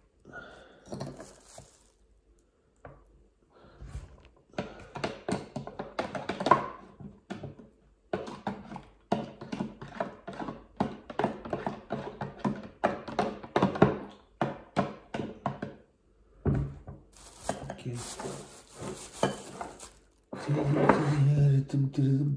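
Clear plastic bag crinkling and rustling as hands and a utensil work at food inside it, in a dense run of small crackles and taps. A man's voice starts about two seconds before the end.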